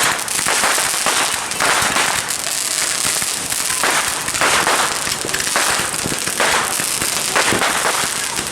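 Fireworks crackling and popping: a dense, continuous run of sharp firecracker-like pops that swells and eases in waves.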